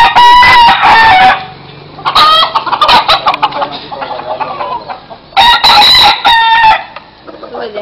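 Gamecocks crowing close by: three loud crows, one right at the start, one about two seconds in and one near the end, each held for over a second.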